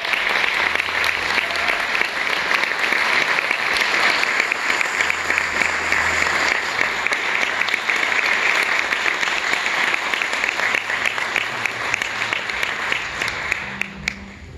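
An audience applauding steadily, a dense patter of many hands clapping. The applause dies away about a second before the end, with a last clap or two.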